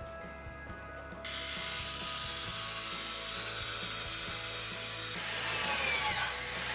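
Ratchet wrench with a 17 mm socket ratcheting rapidly on the upper strut mount bolts, starting abruptly about a second in, with background music underneath.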